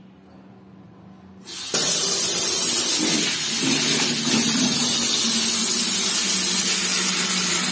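Water from a wall tap running into a plastic bucket, starting about one and a half seconds in as the tap is opened, a steady loud gush. A little later a hand swirls the soapy water in the stream, adding splashing.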